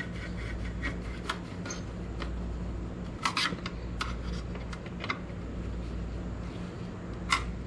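Scattered light clicks and taps of a hand screwdriver working the headlight mounting screws, with a small cluster of clicks a few seconds in and a sharp one near the end, over a steady low hum.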